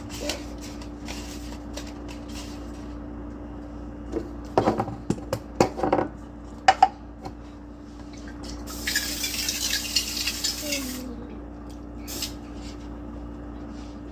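A cup or spoon clinking and scraping against a mixing bowl and baking tins while cake batter is scooped into cupcake tins. There is a cluster of sharp clinks about five to seven seconds in and a few seconds of rustling hiss near the middle. A steady low hum runs underneath.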